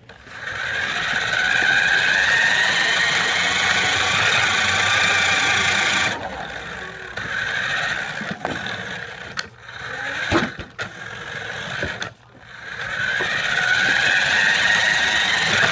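Toy RC car's motor and gears whining as it drives, building up at the start and cutting out about six seconds in. It then starts and stops with a few sharp knocks before whining steadily again near the end.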